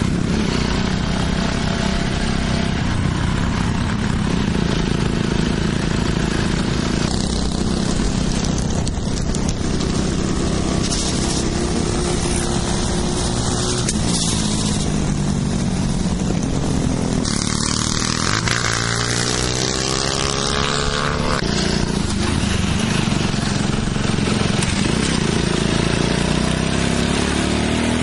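Honda Cub step-through motorcycles' small four-stroke single-cylinder engines running steadily. Their pitch rises and falls with the throttle, with a climbing rev about two-thirds of the way through and another near the end.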